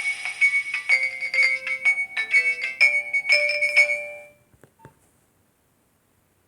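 Nokia 1208b mobile phone ringtone: a melody of quick electronic notes, several sounding together, that fades out about four seconds in. Two faint clicks follow, then silence.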